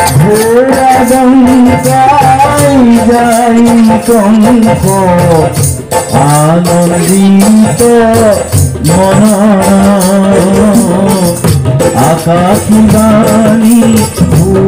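Music: a song in which a singing voice holds long notes that slide up and down, over light shaken percussion.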